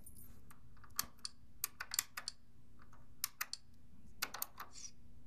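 Keys being pressed on a computer keyboard: sharp, irregular clicks in small clusters of two to four.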